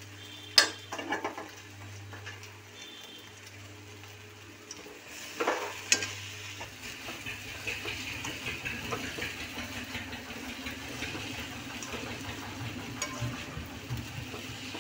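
Metal slotted spatula stirring and scraping sago pearls, fried potato and tomato in a hot metal kadai, with the mix sizzling in ghee. Sharp clinks of spatula on pan about half a second in and around five to six seconds, and the sizzle grows steadier from about seven seconds on.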